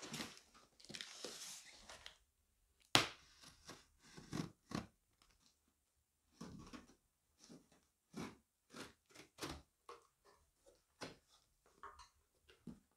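Packaging being opened by hand: intermittent rustling, tearing and crunching, with light knocks. The loudest is one sharp knock about three seconds in.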